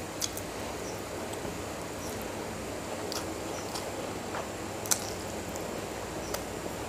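Close-miked chewing of rice and mutton curry, with scattered wet mouth clicks and lip smacks; the sharpest click comes about five seconds in.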